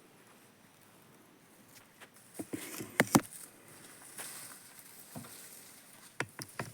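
A few sharp knocks and taps in two short clusters, one about two and a half seconds in and one near the end, over a quiet background.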